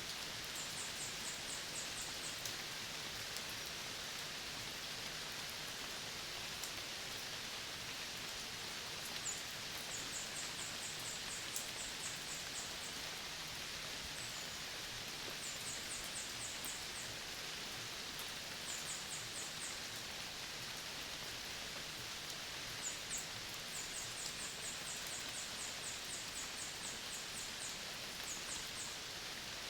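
Midday tropical forest ambience: a dense, steady hiss with repeated runs of quick, very high-pitched chirps, several seconds apart.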